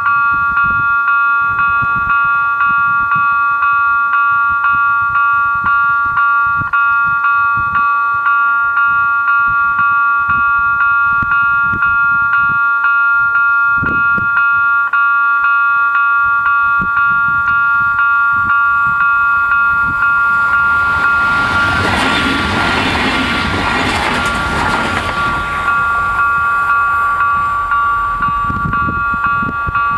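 Level-crossing warning bell ringing continuously in a quick, pulsing electronic pattern. About two-thirds of the way through, a regional passenger train runs past over the crossing for about five seconds, its noise swelling and fading while the bell keeps ringing.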